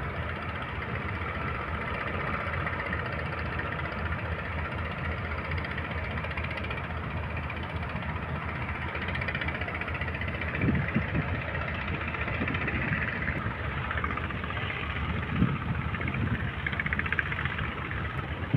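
A boat's engine running steadily at sea, with a few thumps about 11 and 15 seconds in.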